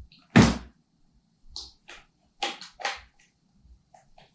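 A series of sharp clicks and knocks from handling a full-metal airsoft rifle, its parts such as the adjustable crane stock being worked. One loud knock about half a second in, then several lighter clicks.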